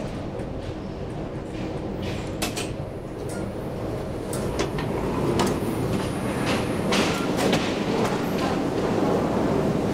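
1999 KONE inclined elevator's door sliding open with a few sharp clicks, over the steady rumble of a metro station that grows louder in the second half.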